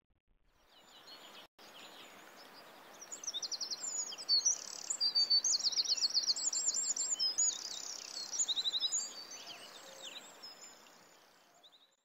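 Small birds singing: quick, high, rapidly repeated trills and chirps over a steady background hiss. The sound fades in, drops out for a moment about one and a half seconds in, and fades away near the end.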